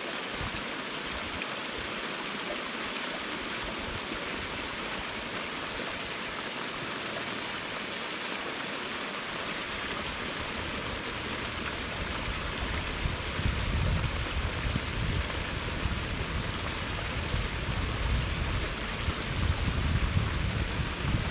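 Steady rushing of water as the tilapia pond is drained into the rice paddy. About halfway in, an uneven low rumble of wind on the microphone joins it.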